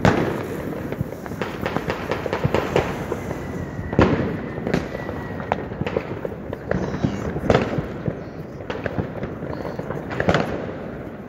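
New Year's Eve fireworks and firecrackers going off all around: a dense string of bangs and cracks, the loudest at the start, about four seconds in and about ten seconds in. A thin high whistle runs from about three to six seconds in.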